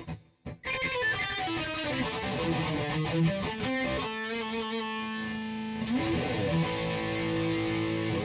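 Electric guitar played through the BOSS BR-900 recorder's COSM amp-modelling patch '80's Hard', a hard-rock tone. After two short stabs, a run of picked notes leads into held chords, with a slide up about six seconds in.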